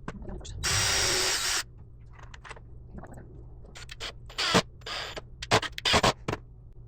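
A power drill runs in one burst of about a second, then a series of sharp knocks follows, hammer blows on barn wood, which the woodworker finds has split.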